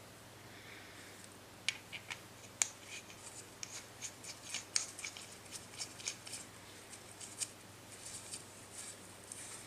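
A CO2 inflator head and cartridge being handled and threaded onto a bicycle tyre's Presta valve with gloved hands: a run of small, irregular metallic clicks and ticks, with rubbing and scraping between them.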